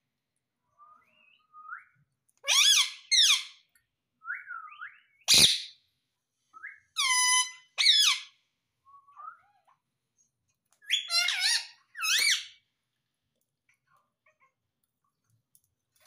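Indian ringneck parakeet calling in short bouts of high-pitched notes that bend up and down, several of them in pairs, with quieter whistled glides between. There is a single sharp knock about five and a half seconds in.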